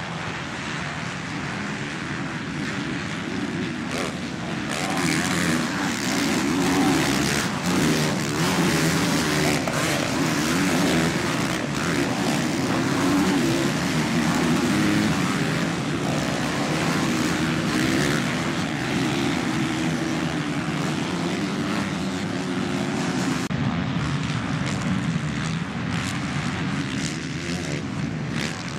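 Several motocross bikes' engines running hard as riders race around a dirt track, many engines overlapping into one continuous sound that grows louder about five seconds in.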